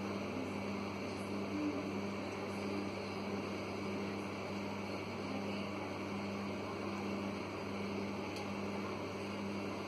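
Microwave oven running with a steady hum while it heats a bowl of cleaning solution inside.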